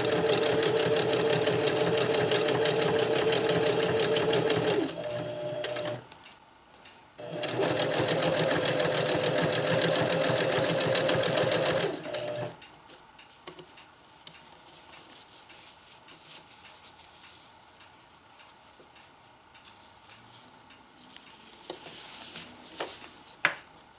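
Domestic sewing machine stitching a zigzag through thin ripstop nylon, running in two spells of about five seconds with a short stop between. For the second half the machine is stopped, leaving only faint sounds and a few light clicks near the end.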